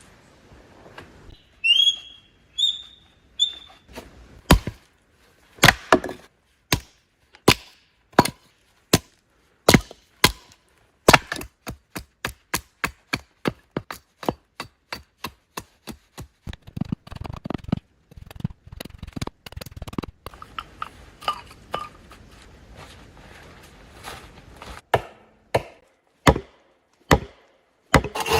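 Hand tool chopping wood: a long series of sharp strikes, about one a second at first, quickening to two or three a second about eleven seconds in, then more irregular. A bird chirps three times about two seconds in.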